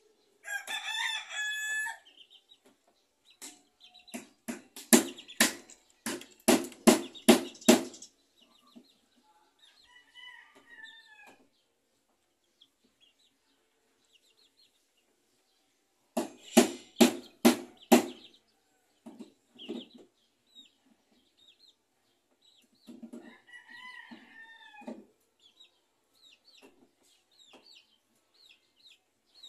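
Hammer nailing into timber framing: two runs of quick, evenly spaced blows, about eight and then about six, the loudest sounds here. A rooster crows three times, once near the start and twice more between and after the hammering.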